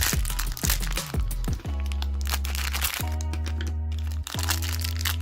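Background electronic music: quick falling bass hits for about the first second and a half, then long held bass notes that change twice.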